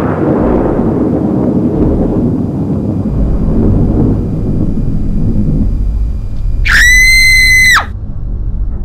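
Horror sound effects: the low rumble of a thunder crash rolls on and swells, then about two-thirds of the way in a shrill scream is held for about a second and cuts off.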